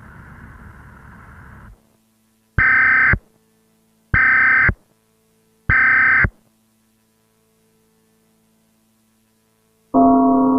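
Emergency Alert System SAME header: three short bursts of harsh, buzzing digital data tones, each about a second and a half after the last. Between them and after them there is only a faint hum. Near the end a loud, steady, multi-pitched tone begins.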